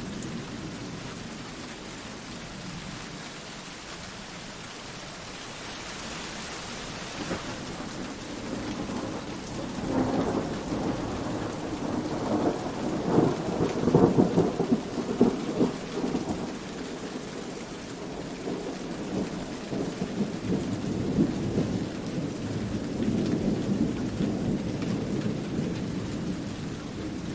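Steady rain falling, with a roll of thunder that builds about ten seconds in and is loudest a little past the middle. A softer rumble swells again near the end.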